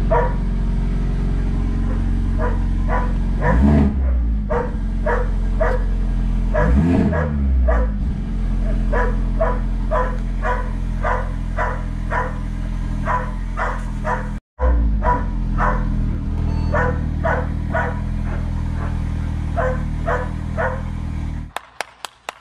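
Mercedes-AMG CLA45's turbocharged 2.0-litre four-cylinder, fitted with a catless (decat) downpipe, idling loudly in neutral with two short throttle blips, heard from inside the cabin. Over it there is a rapid run of short sharp sounds, two or three a second. Near the end it cuts to steady hand clapping.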